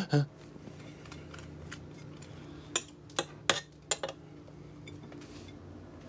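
A few sharp clinks and taps of small hard objects knocking together, four close together near the middle, over a steady low hum.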